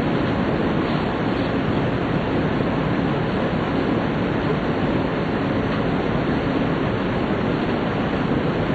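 Steady rushing and rumbling running noise inside a Tōhoku Shinkansen car at speed.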